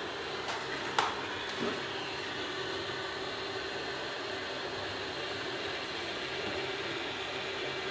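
Heat gun blowing steadily, a fan-driven hiss with a faint hum. A sharp click comes about a second in.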